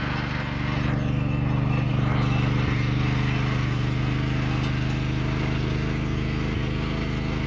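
Tractor engine running steadily as it pulls a plough, slightly louder from about a second in.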